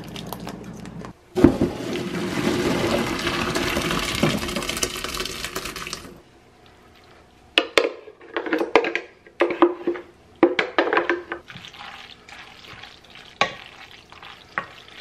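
Hot pasta water poured off through a strainer, a steady rush of water for about five seconds. After a pause, a wooden spoon knocks and scrapes as thick cheese sauce is scraped out of a blender jar onto the pasta and peas and stirred in.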